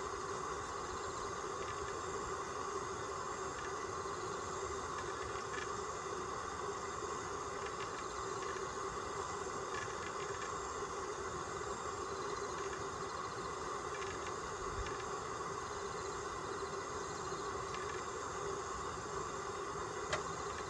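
A steady mechanical hum that holds a constant pitch, with a faint high whine above it and a few faint clicks now and then.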